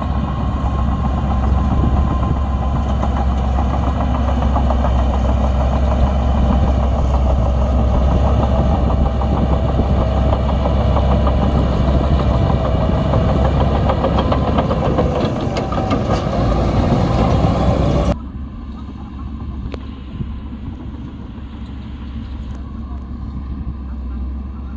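Bulldozer's diesel engine running loud and steady with a deep drone, as it works pushing. About three-quarters of the way through, the sound drops suddenly to a quieter engine sound.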